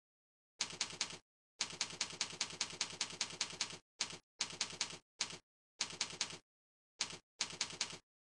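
Computer-generated typewriter-style click sound effect in short runs of rapid clicks, about seven a second, cut off into dead silence between runs: the sound a cursor-effects program plays as the mouse is used.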